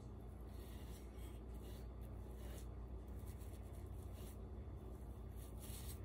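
Soft, irregular swishing strokes of a paintbrush spreading clear gloss polycrylic sealer across a grouted glass mosaic, over a low steady hum.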